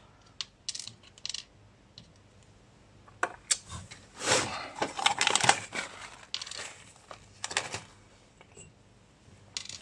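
Small clicks and light clatter of a screw and washers being handled, with scraping and rustling about four to six seconds in as a hand and sleeve work inside a sheet-metal chassis.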